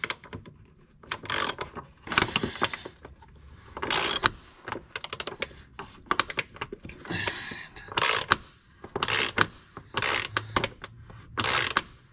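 Hand socket ratchet clicking in short bursts, about one a second, as it is swung back and forth on a bolt through a homemade rivet-nut setting tool. Each turn draws the rivet nut up to crimp it into the hole.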